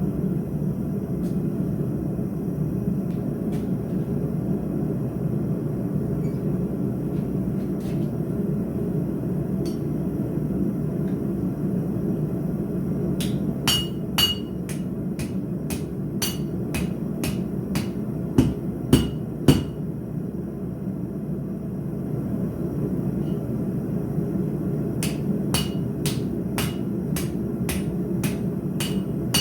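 Blacksmith's hammer striking steel on an anvil in two runs of blows, each blow with a short metallic ring. The first run starts about halfway through and the second a few seconds before the end. A steady low rushing noise runs under them.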